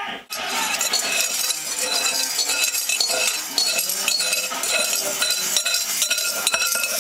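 A metal utensil clinking and scraping against a mixing bowl while baking, many quick clinks with brief ringing.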